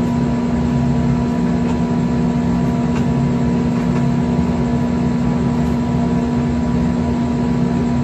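A steady machine hum made of several constant pitched tones over a low noise, unchanging in level.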